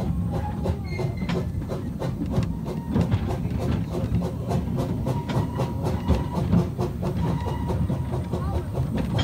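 Light railway train in motion, heard from an open passenger wagon: a steady low rumble with rapid clicking and rattling of wheels over the rail joints.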